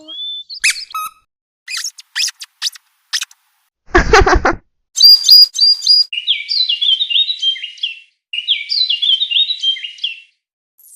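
A string of edited-in cartoon sound effects: short high clicks and chirps, then a loud burst about four seconds in, then two repeated runs of high, bird-like tweeting.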